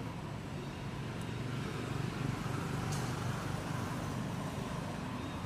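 Low, steady rumble of a motor vehicle's engine, growing louder about two seconds in and then easing slightly, with a short click about three seconds in.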